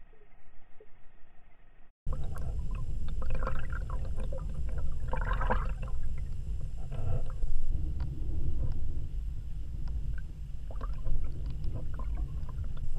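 Underwater sound picked up by a submerged camera as a soft-plastic eel lure is drawn through the water: a steady low rumble of moving water with scattered clicks and knocks. For about the first two seconds the sound is slowed and dull, then after a brief dropout it comes back at full speed and louder.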